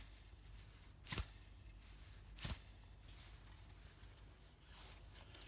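Faint handling noise from a heater blower motor and its plastic squirrel-cage fan being turned over in the hands, with three short sharp clicks about a second apart.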